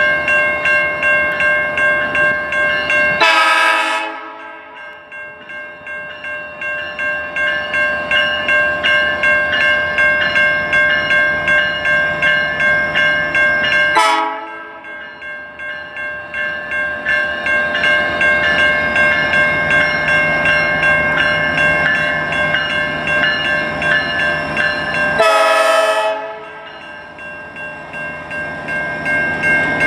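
Grade-crossing warning bell ringing steadily in quick, even strokes as a train led by Alaska Railroad EMD GP40-2 diesel locomotives passes the crossing. The locomotive horn gives two short loud blasts, about 3 seconds in and again about 25 seconds in, and there is a sharp click near the middle.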